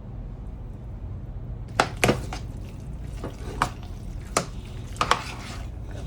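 A utensil clinking against a dish or bowl about seven times, some knocks close together and some spaced out, starting about two seconds in, over a low steady hum.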